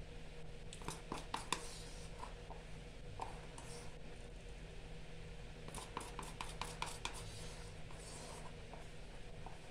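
A spatula scraping and tapping against a rubber plaster bowl while wet plaster of Paris is worked out of it, giving quick clusters of clicks about a second in and again around six to seven seconds.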